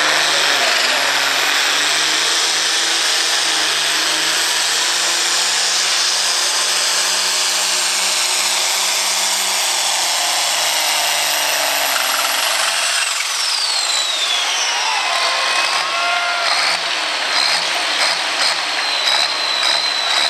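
International Harvester 1066 farm-stock pulling tractor's turbocharged six-cylinder diesel running flat out under the load of the weight sled, with a high turbo whine over the engine. About twelve seconds in the throttle comes off: the whine glides down and the engine note drops, leaving a steady high whistle as the engine runs down at the end of the pull.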